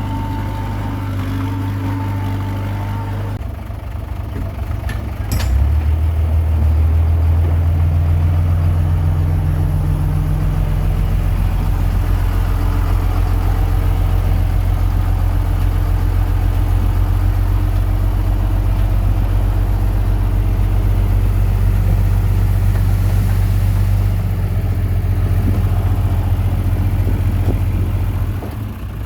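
Komatsu D21P bulldozer's diesel engine running, getting louder and heavier about five seconds in and easing off again near the end.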